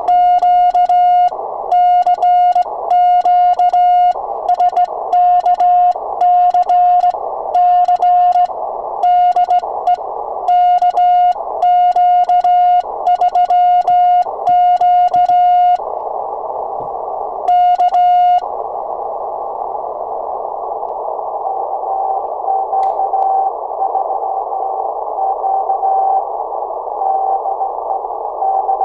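Hand-sent Morse code from a sideswiper key, heard as the transceiver's steady sidetone of about 700 Hz, calling CQ for roughly sixteen seconds. It then gives way to receiver hiss, and from about 22 seconds in a fainter Morse signal at a slightly higher pitch comes through: a station answering the call.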